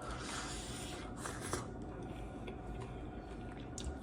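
Close-up rustling and scraping handling noises, with a brief louder rustle about a second in.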